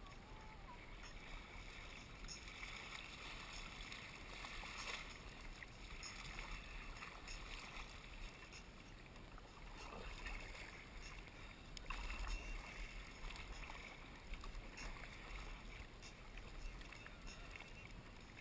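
Kayak paddle strokes, the blades dipping and splashing in calm sea water, with water washing along the hull.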